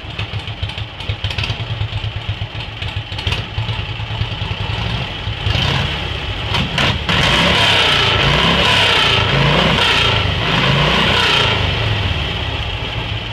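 1941 Harley-Davidson Knucklehead V-twin engine running on its first start after years of sitting. It idles with a low, pulsing beat, is revved up about five seconds in and held at higher revs for several seconds, then drops back toward idle near the end.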